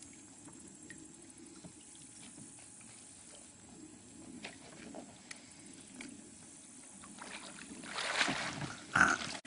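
Faint murmur of shallow creek water, then louder splashing near the end.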